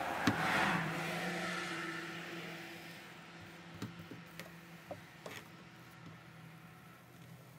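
Plastic welder melting plastic into a hole in a plastic sled: a steady low hum with an airy hiss that is loudest over the first two seconds and then fades, and a few faint ticks.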